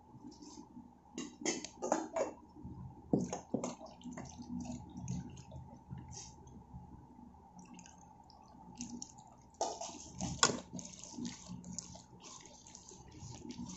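A hand squishing and kneading a thick, wet masala paste of chilli powder, spices and tamarind water in a bowl. The squelches come in irregular short bursts, loudest around two, three and ten seconds in.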